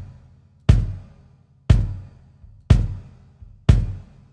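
24-inch Pearl President Deluxe kick drum with a coated Ambassador batter head, a felt-strip-muffled reso head and a pillow inside, struck four times about a second apart. Each hit is a short thud that dies away quickly.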